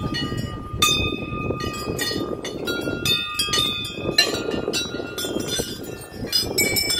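Brass temple bells hanging in a row, rung by hand one after another: sharp strikes about twice a second, each leaving a long ringing tone that overlaps the next, over the low noise of a crowd.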